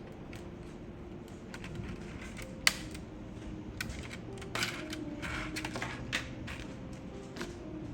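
Small plastic and metal keyboard parts being handled, giving scattered clicks and taps, with one sharp click a little under three seconds in and a cluster of clicks about halfway through.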